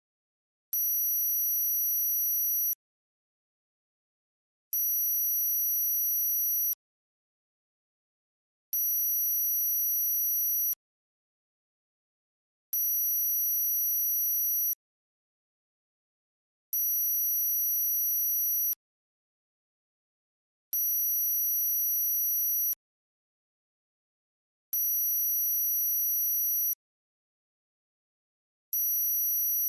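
Synthesized high-pitched tone for tinnitus masking, pulsing evenly about two seconds on and two seconds off, with silence between the pulses.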